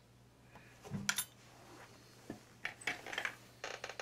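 Hard objects being handled and set down on a workbench, clinking and knocking like crockery and small tools. A sharp clink comes about a second in, then a run of lighter clicks and rattles near the end.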